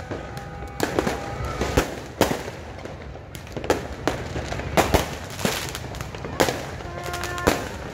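Fireworks going off all around: a quick, irregular string of sharp bangs and cracks, some loud and near, others fainter and farther off, over a steady background of distant popping.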